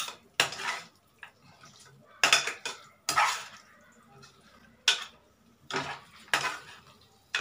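A spoon scraping and knocking against the pressure cooker's pot as mutton pieces are stirred and fried in masala. There are about seven sharp scrapes and clanks at uneven intervals.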